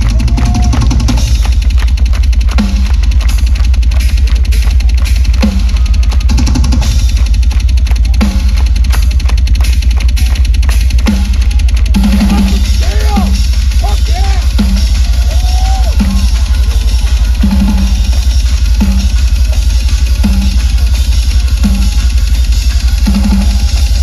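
Live rock drum kit solo, very loud: rapid, unbroken double bass drum strokes under regularly spaced tom hits and cymbal crashes.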